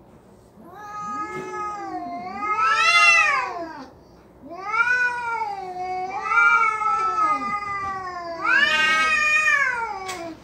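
Domestic cats yowling at each other in a standoff before a fight: long, wavering threat howls that rise and fall in pitch, in two stretches with a short break about four seconds in.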